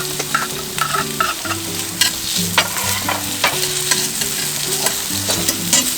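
Sliced bacon frying in butter with garlic and onion in a pan, sizzling steadily, while a utensil stirs it with scattered sharp clicks and scrapes against the pan.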